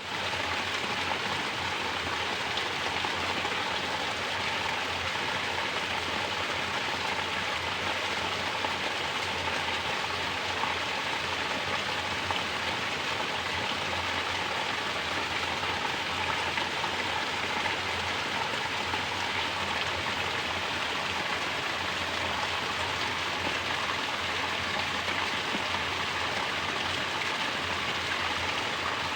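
Mountain water falling like a natural shower, splashing steadily and without a break.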